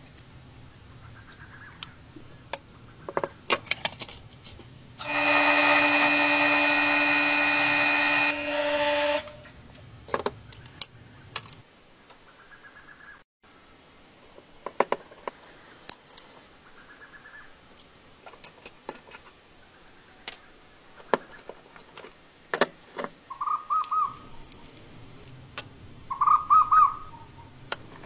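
Hand tools clicking and scraping on the cast-iron parts of an antique mechanical coin bank as its screws are worked loose. A power tool runs steadily for about four seconds near the start, and a few short squeaks come near the end.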